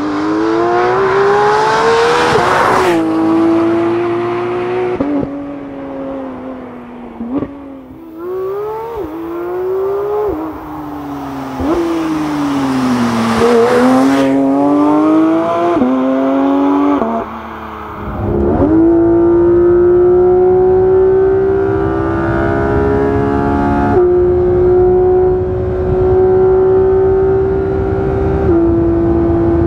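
Porsche GT3 naturally aspirated 4.0-litre flat-six revving hard: its pitch climbs and drops sharply several times at the gear changes. From about two-thirds of the way through, the engine holds a steady pitch at nearly constant revs.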